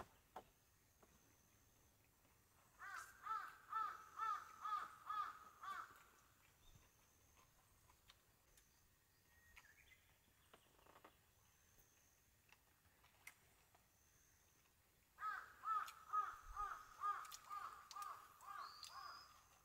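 Faint bird calling in two runs of quick repeated calls, about three a second: about ten calls starting some three seconds in, and a longer run near the end.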